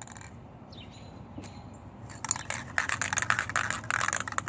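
Aerosol spray paint can being shaken fast, its mixing ball rattling in rapid clicks that start about two seconds in.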